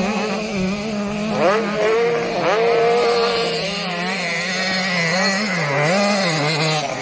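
Several 85 cc two-stroke motocross bikes racing, engines revving up and down, with quick rising revs about a second and a half and two and a half seconds in.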